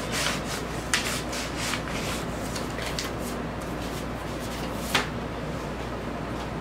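Cardboard gatefold jacket and paper inserts of a vinyl LP being handled: card and paper rubbing and sliding, with a sharper tap about a second in and a louder one near five seconds.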